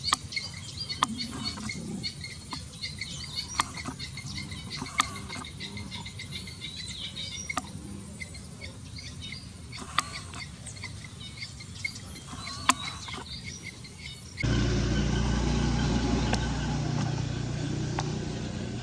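Outdoor ambience of steady high chirping, from insects or birds, with scattered sharp clicks. About fourteen seconds in it changes abruptly to a louder, steady low rumble.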